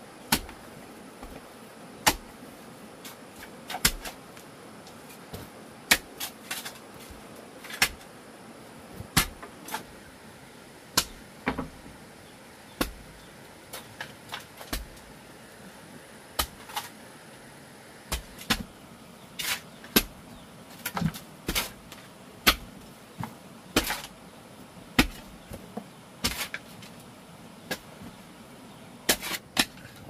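A series of sharp knocks and taps at an irregular pace, about one a second and some much louder than others, over a steady hiss.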